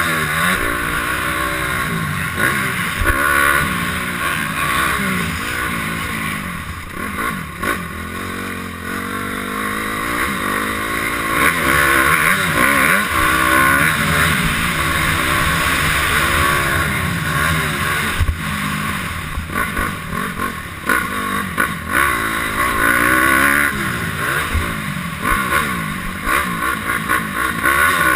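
Honda CRF250R's single-cylinder four-stroke engine revving up and down over and over as the motocross bike is ridden hard on a dirt track, the pitch rising and falling with each burst of throttle.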